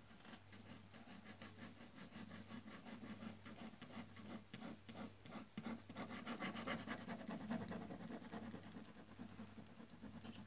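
Black ballpoint pen scratching on paper in quick, repeated shading strokes, louder from about halfway through, over a steady low hum.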